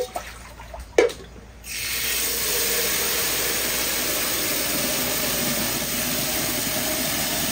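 A couple of sharp clinks, then about two seconds in a loud, steady hissing noise starts abruptly and holds without change.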